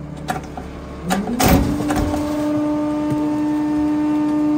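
Pak Mor rear-loader garbage truck packing a load: a clank about a second in, then the engine revs up and holds a steady high drone while the hydraulic packer cycles.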